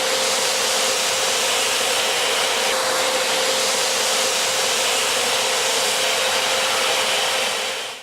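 STIHL SE 122 E wet and dry vacuum cleaner running at a steady speed: an even rushing of air with a steady whine. The sound stops suddenly at the end.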